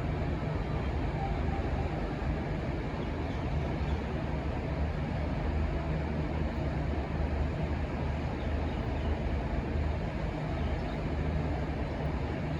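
Diesel locomotive engines running with a steady low rumble, no horn sounding.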